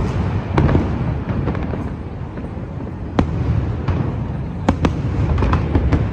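Aerial fireworks going off in rapid succession: many sharp bangs and crackles over a continuous low rumble of bursting shells, with a dense cluster of reports near the end.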